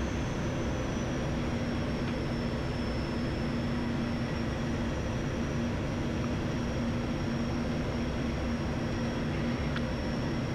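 Steady cockpit drone of an ATR turboprop airliner on final approach: engine, propeller and airflow noise with a low hum, and a high whine that sinks slightly in pitch over the first few seconds.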